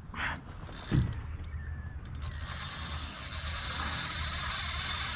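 Spinning reel mechanism running steadily for about three seconds, a continuous ratcheting whir, after a single knock about a second in.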